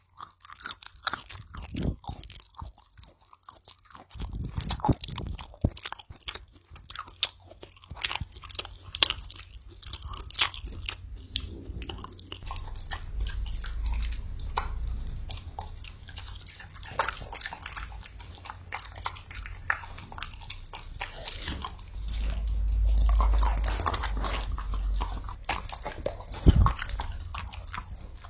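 A person chewing and biting food, with many irregular crunches and clicks.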